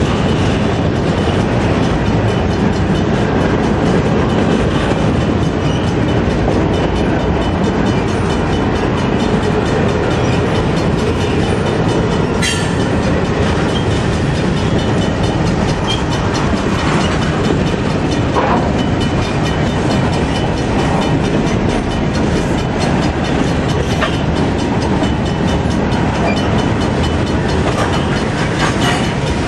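Freight cars of a passing train rolling by close at hand: a steady loud rumble and rattle of steel wheels on the rails, with some clickety-clack. A single sharp metallic sound stands out about twelve seconds in, and a few lighter clanks follow later.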